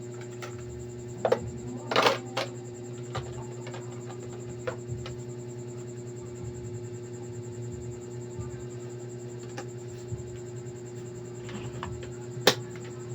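Hard plastic parts being handled: a scattering of sharp clicks and knocks, with a cluster in the first few seconds and one loud click near the end, over a steady hum.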